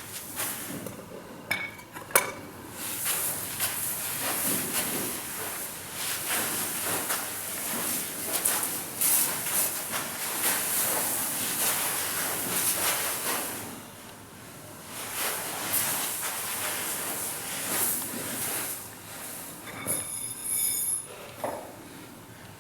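Grain rustling and shifting with irregular metallic clinks and knocks as a Vikhr-2000B grain-pile fan's metal tube is worked down into a heap of grain. A short metallic ringing squeal comes near the end.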